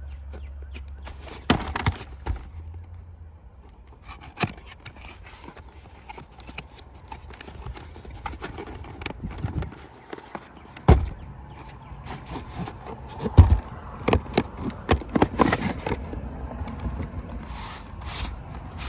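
A stubby ratchet set being unpacked by hand: irregular clicks, knocks and scraping of packaging and metal tools, with a few louder knocks.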